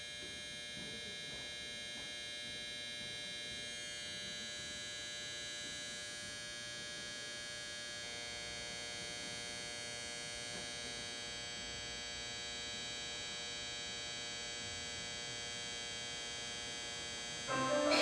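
A steady electronic hum made of many sustained high tones, shifting slightly about four and eight seconds in. Music begins just before the end.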